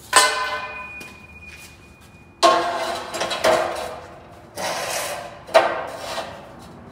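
Metal ladder-rack tubes clanking against each other and the chop saw's clamp as they are set in place: about five sharp metallic knocks, each ringing on briefly, one of them ringing for about two seconds.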